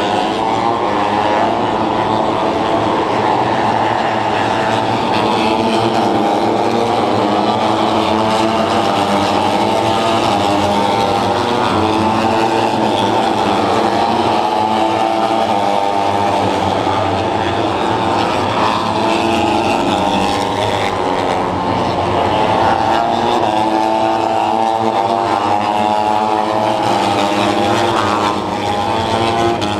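Several Grand Prix racing motorcycles running hard around the circuit: their engines form a loud, continuous, overlapping note that rises and falls as the bikes accelerate, shift and brake.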